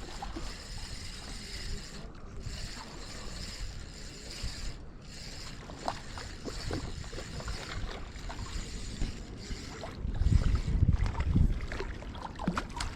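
Fishing reel being cranked in short bursts to retrieve a bobber rig, its gears and bail ticking and clicking. A gust of wind rumbles on the microphone about ten seconds in.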